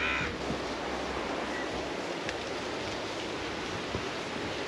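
Steady wash of sea surf mixed with wind. A brief high-pitched sound right at the start.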